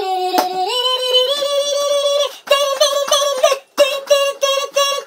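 A high-pitched sung voice holding notes that step up and down, broken by two short pauses.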